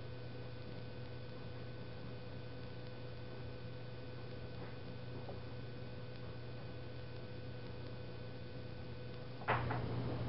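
Steady electrical mains hum with a faint high whine. A sudden knock comes near the end, and the hum is louder after it.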